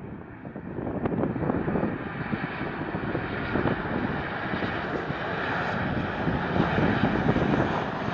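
Jet engines of a Boeing 737 on final approach to land, a steady rumble that grows louder as the airliner comes in low overhead.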